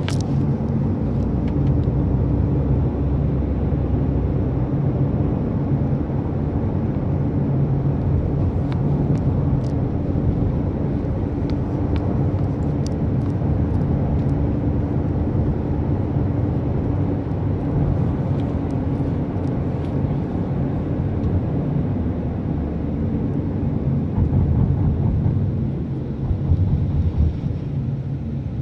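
Steady low rumble of a moving car's engine and tyres, heard from inside the cabin, growing a little louder near the end.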